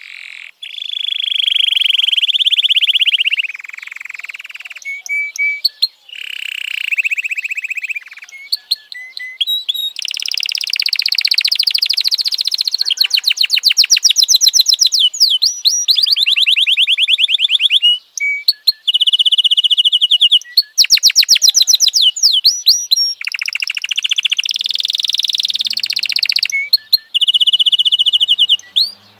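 An F1 canary singing a long song of rolling trills and fast-repeated notes, phrase after phrase, with short breaks between phrases.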